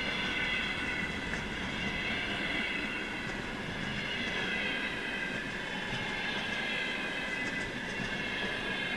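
Loaded container flat wagons of a freight train rolling past at about 44 km/h: a steady rumble of wheels on rail with a high, squealing ringing from the wheels that wavers slowly in pitch, and faint clicks.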